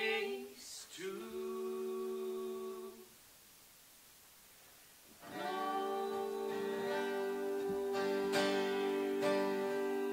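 A man and a woman singing long held notes together over an acoustic guitar. The music drops away for about two seconds in the middle, then comes back with sustained sung notes over strummed guitar chords.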